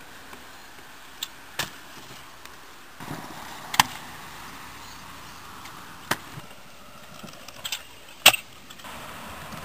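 Stunt scooter wheels rolling on concrete, with sharp clacks of the scooter hitting the ground on landings. The loudest clack comes near the end, as a rider lands off a concrete funbox.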